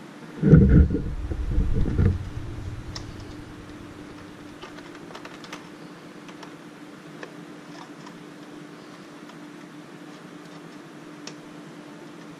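Handling noise from hands working the wiring connectors on a tube amplifier's circuit board. A loud low rumble starts about half a second in and lasts about a second and a half, then faint scattered clicks follow over a steady low hum.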